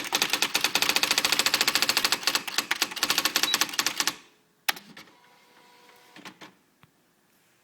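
Swintec 7000 electronic typewriter striking characters in a fast, even run of clicks, about a dozen a second. The run stops about four seconds in, followed by one sharp clack and a few faint clicks.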